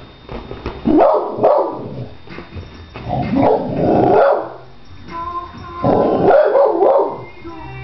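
Wheaten Terrier puppy barking at a television in three loud bouts, about a second in, near the middle and near the end.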